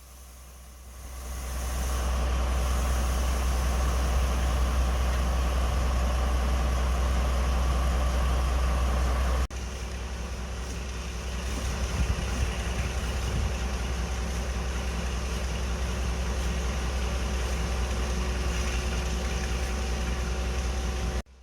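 Heritage diesel locomotive engine running steadily, swelling over the first two seconds. About halfway through it gives way abruptly to another steady diesel engine sound carrying a held tone.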